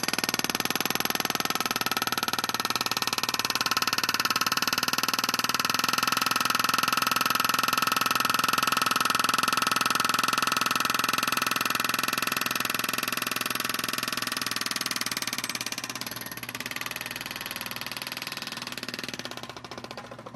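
Jackhammer running, a rapid, steady hammering. It drops in level about sixteen seconds in and dies away near the end.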